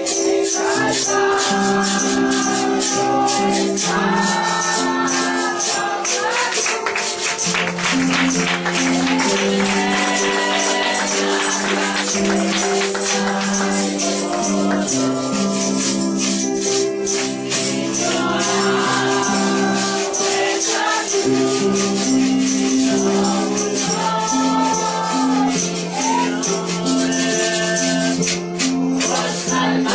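Live gospel worship music: a church band playing a Spanish-language praise song, with a tambourine shaken steadily over held chords and a melody line.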